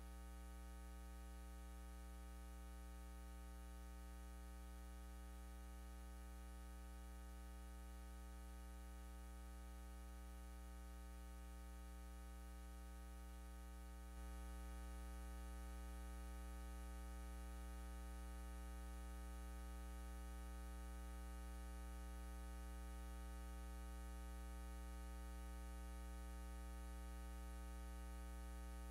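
Steady electrical mains hum with many even overtones, a low buzz with no other sound over it; it gets slightly louder about halfway through.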